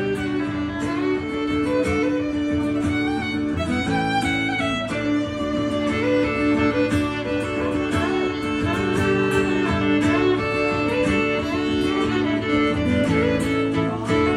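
Instrumental break in a country song: a fiddle plays the melody over rhythm guitar.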